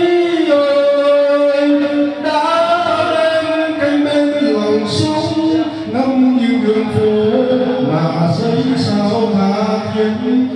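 A man singing solo into a handheld microphone, holding long notes that slide from one pitch to the next.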